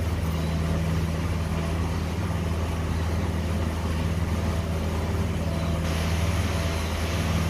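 Steady low machine hum with an even hiss over it; the hiss grows a little brighter about six seconds in.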